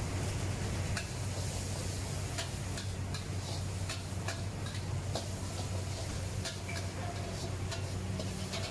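Metal wok spatula tapping and scraping against a steel wok as noodles are stir-fried, in sharp irregular clinks about two a second from about a second in, over a steady low hum.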